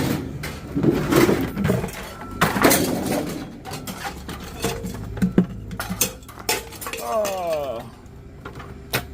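Scrap metal being handled and tossed: a series of separate clanks and knocks, with a short falling squeal about seven seconds in.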